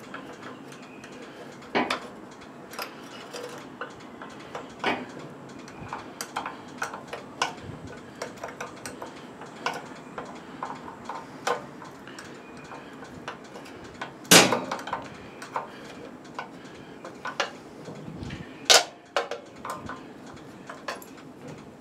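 Irregular light metal clicks and clinks of hands and tools working on a tiller, with two louder clanks about two-thirds of the way through and again near the end.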